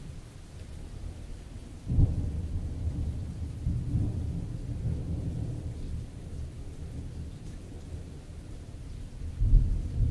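Thunderstorm sound effect: a clap of thunder about two seconds in rolls on as a deep rumble, and a second thunder rumble swells near the end.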